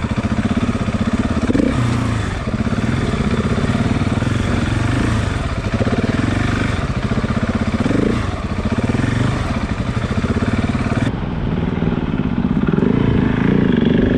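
KTM 690's single-cylinder engine under a rider's throttle, pitch rising and falling with several short blips on a muddy trail. The sound changes abruptly about eleven seconds in.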